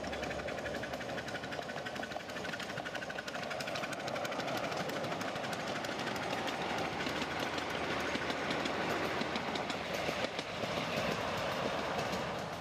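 Miniature railway train running, with a rapid, regular clicking beat over a steady rushing noise.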